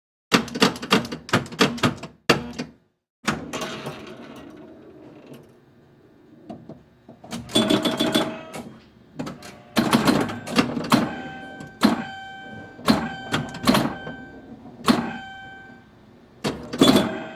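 A run of sharp mechanical clicks and clacks from a small office-type machine, with a rattling mechanical stretch that fades out a few seconds in. Later the clacks come with short steady electronic beeps, and a last burst of clatter comes near the end.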